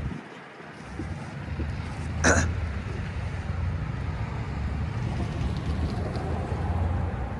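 Freight train rolling past with a steady low rumble, and one short sharp knock about two seconds in.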